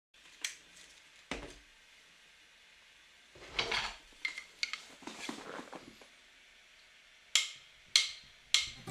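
Faint handling noise: a click and a dull knock in the first second and a half, short bursts of rustling with a couple of taps from about three and a half to six seconds in, then three sharp clicks about half a second apart near the end.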